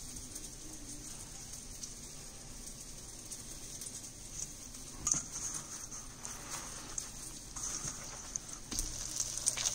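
Fish fillets frying in hot oil in a skillet, a faint steady sizzle. From about five seconds in come soft, scattered taps and rustles of fish pieces being tossed in a bowl of flour mix.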